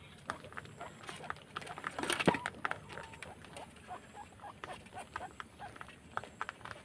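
Guinea pigs and rabbits chewing and nibbling food from a plate: many small, quick, irregular crunching clicks, with one louder brief noise about two seconds in.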